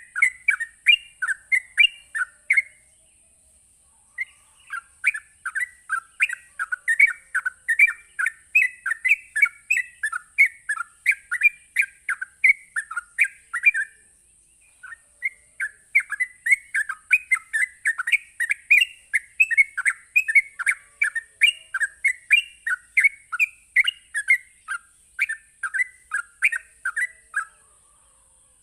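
Yellow-vented bulbul (trucuk) singing its fast, rapid-fire rolling song ("ropelan"), the kind of song used to provoke other trucuk into answering. It comes in three long runs with short breaks about 3 s and 14 s in, over a steady high hiss.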